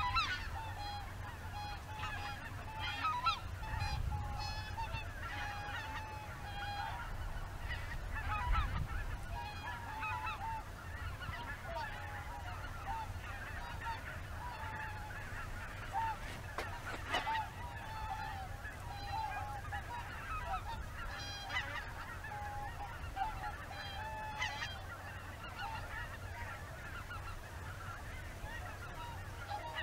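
A flock of greater white-fronted geese calling in flight: a continuous chorus of many short, high-pitched, overlapping honks.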